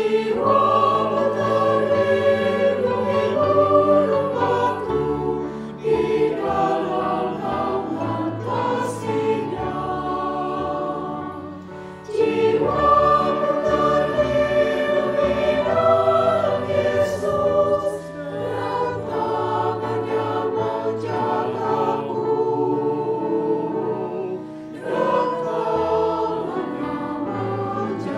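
A mixed choir of women's and men's voices singing an Indonesian hymn in long held notes. The phrases are about six seconds long, with a brief breath between each.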